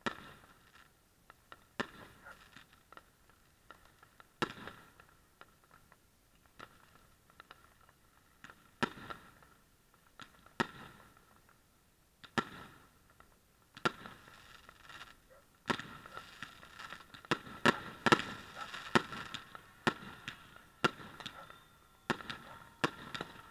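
Fireworks going off: single sharp bangs every second or two, becoming a rapid, dense run of bangs and crackle in the second half.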